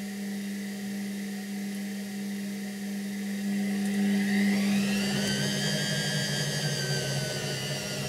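Washing machine running with a steady motor hum; about halfway through a whine rises in pitch and the sound grows louder, then holds at the higher pitch.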